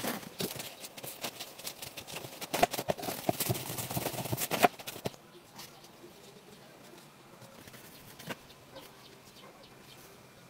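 Quick clicks, knocks and rustles of hands pressing and handling a bamboo sushi-rolling mat, dense for about five seconds and then dropping away to a low background with an odd click.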